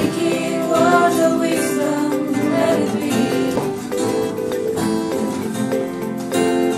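Acoustic guitar played while a small group of young voices sings along from lyric sheets.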